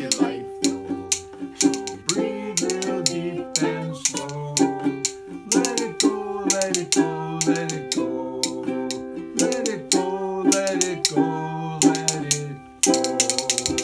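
Ukulele strumming with a man and a woman singing, accompanied by the sharp, repeated clicking of rhythm bones.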